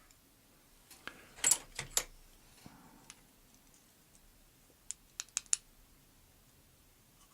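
Small metal clicks and taps from a pin-tumbler lock being taken apart by hand, with the core being worked out of its housing using a shim. A cluster of clicks comes about a second in, then four quick sharp ticks around five seconds in.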